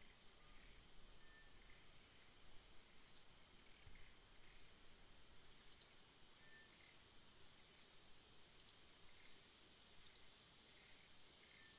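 Faint ambient background: a steady high hiss with about eight to ten short, high, falling chirps scattered through it, typical of small birds calling.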